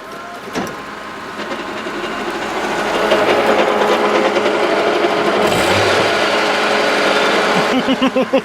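Holden Commodore VU ute's V6 running through its failing Turbo 700 automatic gearbox, making a horrible noise that builds over the first few seconds and holds steady, then changes to a rapid pulsing near the end. The gearbox has no reverse, and the owner thinks it has lost a clutch pack or two.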